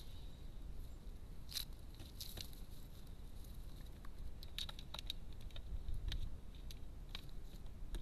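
A crow's beak pecking and tapping at food in a feeder dish: irregular sharp taps and clicks, some in quick clusters.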